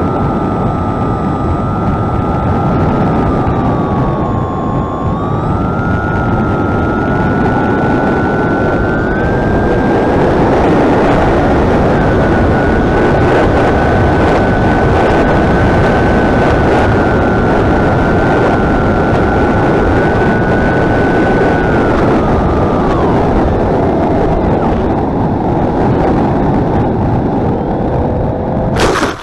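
Electric motor and propeller of an AR Pro 1000 flying wing heard from its onboard camera, a whine over heavy wind rush; the whine's pitch dips, climbs and steps with the throttle. The whine falls away a few seconds before the end, leaving wind rush, then a sharp noise and the sound cuts off.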